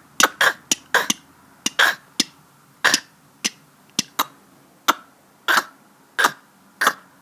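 A person making short, sharp breathy mouth sounds, a run of clicks quick at first and then about one every half second or so, as walking and climbing footstep effects.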